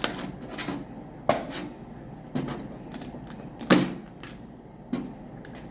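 Steamed blue crab and crawfish shells cracking and snapping as they are broken open for eating: four sharp cracks, the loudest about two thirds of the way through.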